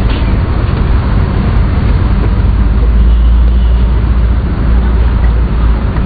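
Loud, steady low rumble of wind buffeting the microphone at an open seafront.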